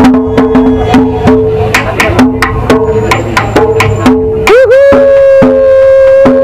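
Hand strikes on a hanging barrel-shaped, double-headed drum, a quick irregular run of slaps over music with a repeating low note. About four and a half seconds in, a long held pitched tone starts and wavers slightly.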